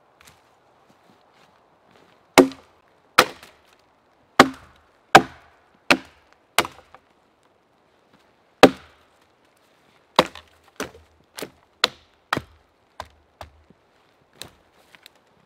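Axe chopping into a felled tree trunk: sharp wooden strikes, one every half-second to second, starting about two seconds in. There is a short pause near the middle, then a quicker run of lighter blows.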